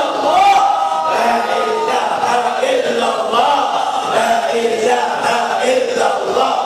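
A congregation of men chanting dhikr together in unison, a continuous melodic group chant.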